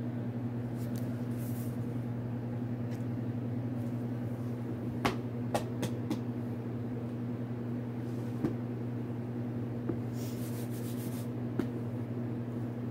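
A steady low hum, with a few light knocks and clicks and a short rustle about ten seconds in as a hardcover book is picked up and handled.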